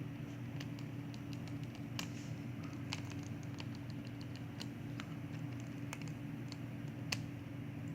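Scattered light clicks and taps of the opened monitor's parts being handled and set down, over a steady low hum.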